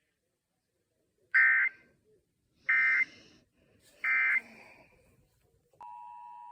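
Emergency Alert System end-of-message code: three short, loud bursts of warbling two-tone digital data, about a second and a half apart, marking the end of the alert. Near the end a steady two-note EAS attention tone starts for the next test.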